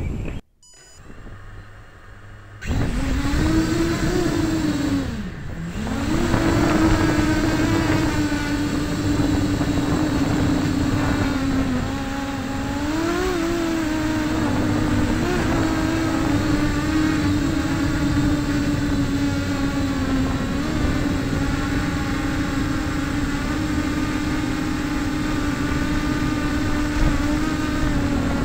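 Brushless motors and three-blade 6-inch propellers of a small quadcopter running on a 3S battery in flight, a loud steady buzzing whine. After a couple of quiet seconds it starts up, its pitch dips and recovers about five seconds in, and it rises briefly a few times around the middle as the throttle changes.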